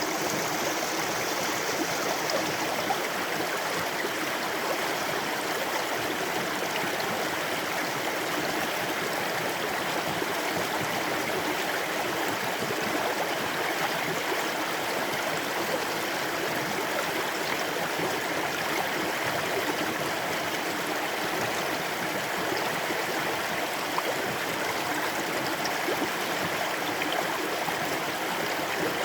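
Water running steadily over rocks in a stream, a continuous rushing and gurgling.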